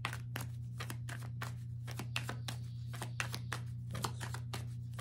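Deck of tarot cards being shuffled by hand: a quick, irregular run of light card clicks and flicks, over a steady low hum.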